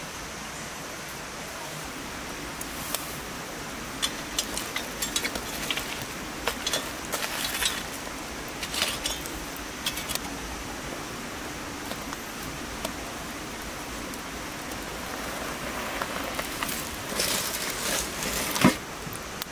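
Foil-wrapped fish lifted from a wood-fired oven: aluminium foil crinkling, then a sharp metallic clank as it is set on a metal tray near the end. Before that, scattered light clicks and crackles over a steady hiss of rain.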